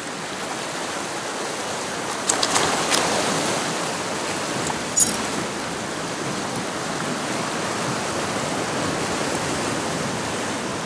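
Steady rush of sea water washing around shore rocks, with a few short clicks about two to three seconds in and a sharper one at about five seconds.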